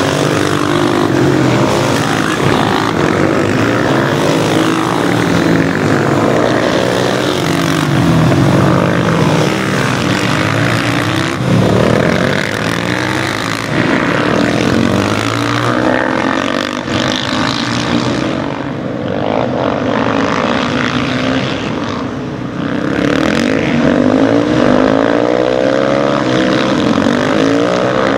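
Several supermoto motorcycle engines racing, revving up and down as the bikes brake into corners and accelerate out. Many engine notes overlap, rising and falling continuously.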